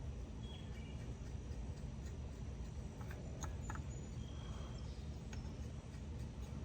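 Low steady background rumble with a few light clicks from metal parts and tools being handled, and a few short high chirps.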